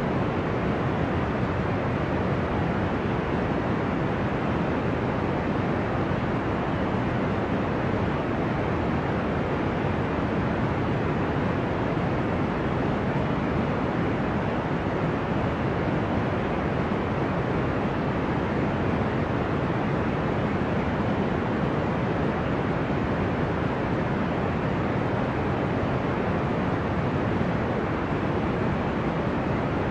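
Steady deep white noise, a dull low hiss meant to sound like the ocean, with no rise and fall of waves and no other events.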